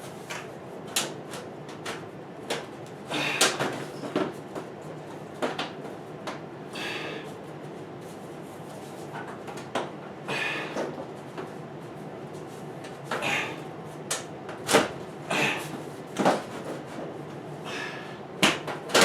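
Sheet-metal heat duct pipe being handled and worked at a joint: scattered clanks, knocks and short scrapes of thin metal as a swaged end is forced toward an opening that is slightly too small for it.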